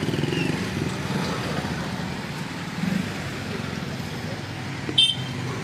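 Slow highway traffic passing: steady rumble of car and motorcycle engines with road noise. Near the end comes a short high beep.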